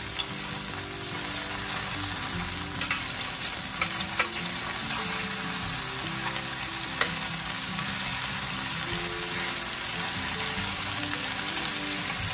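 Marinated chicken drumsticks sizzling steadily in hot oil in a stainless steel skillet as they brown. Metal tongs click against the pan a few times as the pieces are turned, the loudest click about four seconds in.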